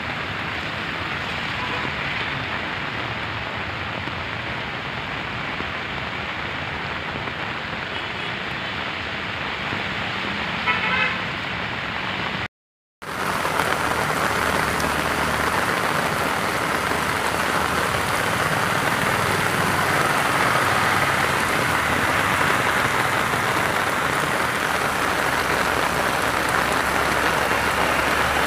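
Heavy rain and cars driving through a flooded road make a steady rushing noise, with a short car horn about eleven seconds in. After a brief break, a louder, denser rush of rain and floodwater continues as vehicles splash across.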